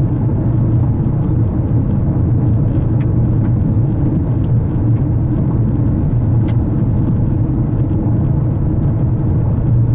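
Car cabin noise while driving: a steady low rumble of engine and tyres on the road, with a few faint ticks scattered through it.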